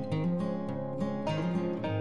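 Background music led by acoustic guitar, plucked notes in a steady rhythm.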